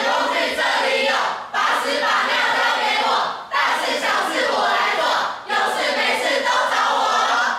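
A group of young people chanting a cheer loudly in unison, in four phrases of about two seconds each with short breaks between.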